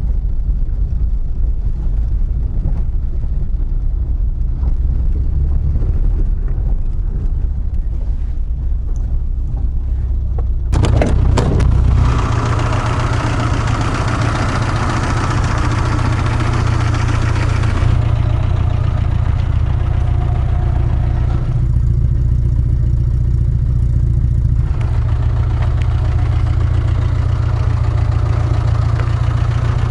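Interior sound of a VAZ 2110's 8-valve four-cylinder engine pulling the car along in second gear, a steady low drone. About eleven seconds in, a louder hiss of road and wind noise joins it.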